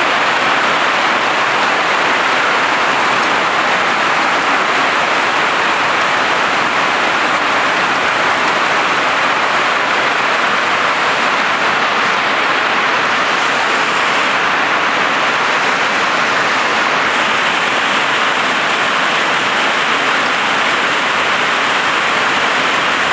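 Hail pelting a tin roof in a dense, steady downpour of countless small impacts, loud and unbroken.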